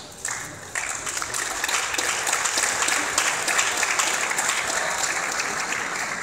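Audience applauding: it starts with a few scattered claps, swells into full applause within about a second, and eases off near the end.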